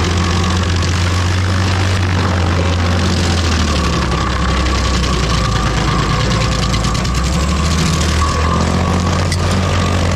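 Rayco RG50 stump grinder's engine running steadily while it grinds a stump. The engine note drops lower for a few seconds in the middle as it takes load, then comes back up.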